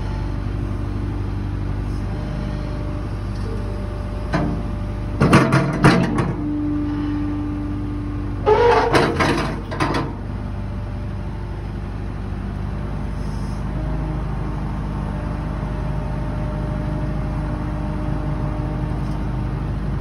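2004 JCB Robot 170 skid steer loader's diesel engine running steadily while the loader arm raises and lowers the bucket. Loud knocks and rattles come about five seconds in and again around nine seconds in.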